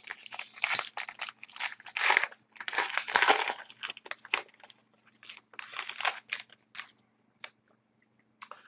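Wrapper of a 2011-12 Upper Deck SP Authentic hockey card pack crinkling as it is opened, along with cards rustling in the hands. The rustling is dense for the first four seconds or so, then thins to scattered short rustles and ticks.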